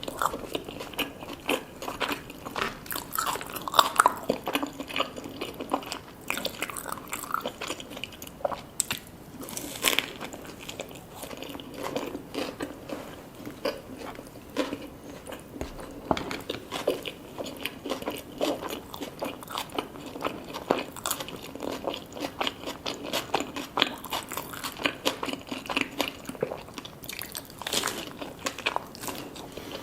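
Close-miked eating sounds: steady chewing with many crisp, crunchy bites and wet mouth clicks.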